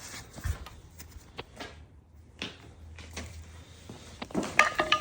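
Scattered clicks and knocks of hand tools and metal linkage parts while a retaining pin is worked off the gear shifter arm, with a short squeak near the end.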